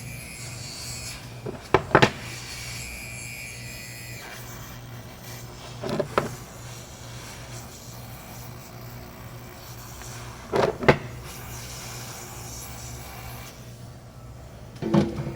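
Short sharp knocks and clicks, mostly in close pairs, about every four seconds, from a laptop charger's casing being handled and pressed after gluing, over a steady low hum.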